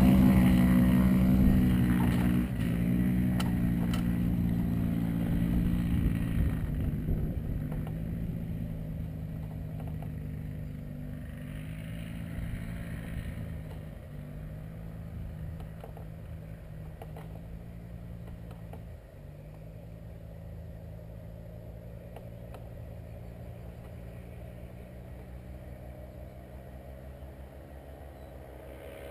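Two-seat powered-paraglider trike's engine and propeller running steadily at high power as the trike moves away, the drone fading gradually into the distance, with a small drop in pitch a couple of seconds in and again around six seconds in.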